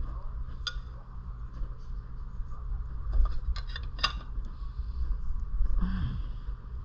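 Metal hand tools clinking against small-engine parts: a few sharp clinks, with a cluster about three to four seconds in, over a steady low hum.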